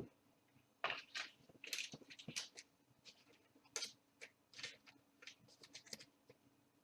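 Trading cards being handled and slid past one another: faint, short, irregular swishes and scrapes of card stock.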